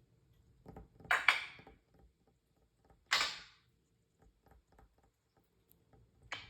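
A Timneh African grey parrot making a few short, sharp, noisy calls: a quick pair about a second in, a longer one about three seconds in, and another near the end, with soft clicks between them.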